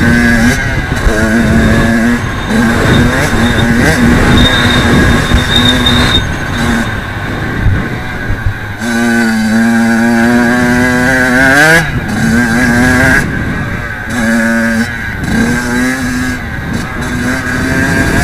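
Kawasaki KX85 two-stroke motocross engine ridden hard, its note rising and breaking off again and again as the throttle is opened and shut. About two-thirds through it holds one long pull that climbs sharply to a high rev. Heavy wind rush runs under it.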